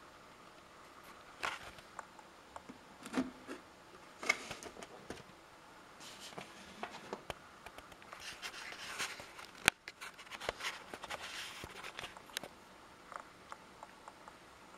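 Handling noises: irregular scraping, rustling and clicking, with one sharp click about ten seconds in.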